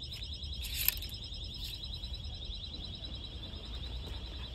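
A high-pitched electronic alarm sounding continuously with a fast warble, over a low steady hum; a sharp click about a second in.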